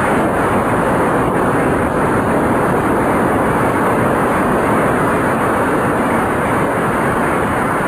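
Audience applauding: a steady, even clatter of many hands clapping.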